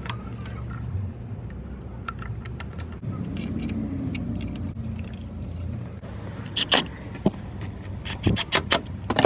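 Metal parts and tools clinking and scraping as engine intake parts are handled and fitted, with a few sharp clinks about two-thirds of the way in and a quick run of them near the end, over a steady low hum.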